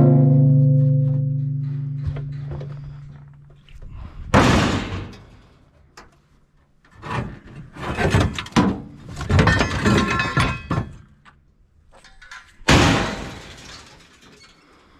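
Scrap steel car parts being handled and tossed onto a metal pile. A loud clang at the start rings on for about two seconds. Then come separate knocks, a few seconds of rattling clatter, and another hard clang near the end.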